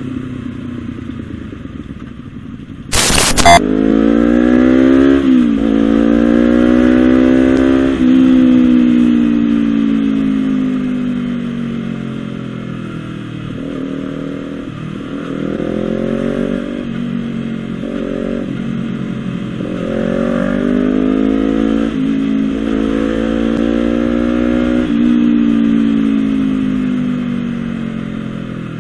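Honda CBR250RR parallel-twin engine through a Villan SV1 slip-on exhaust, revving up and down repeatedly: quick climbs with sudden drops, long falling runs, and a series of short blips in the middle. A sharp, loud burst of noise about three seconds in.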